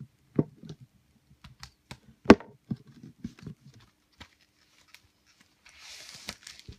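Hands handling a boxed CD single package: a string of small clicks and taps on the cardboard and plastic, one sharper knock about two and a half seconds in, and a brief rustle of paper or plastic near the end.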